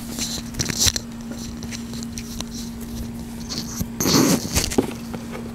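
Soft rustling and handling noises in two brief spells, near the start and about four seconds in, over a steady low hum.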